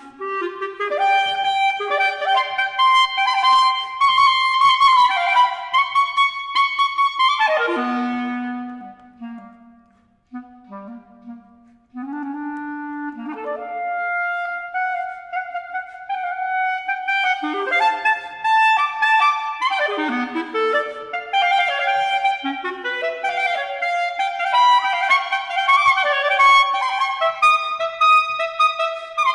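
Solo unaccompanied clarinet playing fast runs and wide leaps. About eight seconds in, a quick run falls to the low register; a few soft low notes and a brief near-silent pause follow, then rapid figures resume.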